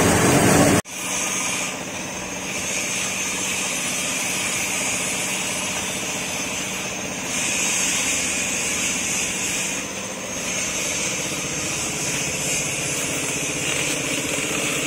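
A grain grinding machine running, cut off abruptly about a second in; a steady engine-like drone then carries on.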